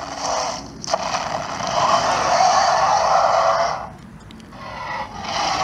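Electronic dinosaur roar sound effect from the Mattel Sound Strike Baryonyx Grim toy's built-in speaker, set off by moving the figure's head and tail. One harsh roar starts about a second in and lasts nearly three seconds; another begins near the end.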